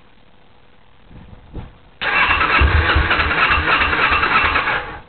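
Electric starter cranking a Kawasaki Ninja 250R's parallel-twin engine for about three seconds, with a pulsing beat from compression. It stops abruptly without the engine settling into a run. This is the first start after an engine swap, on only part choke, and the engine is not catching.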